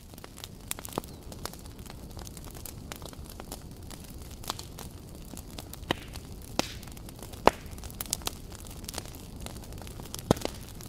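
Small wood fire burning, crackling with irregular sharp pops over a steady hiss; the loudest pop comes about halfway through.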